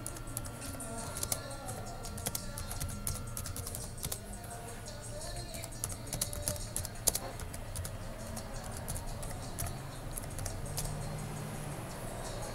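Typing on a computer keyboard: irregular runs of keystroke clicks, thinning out in the last few seconds, over a low steady hum.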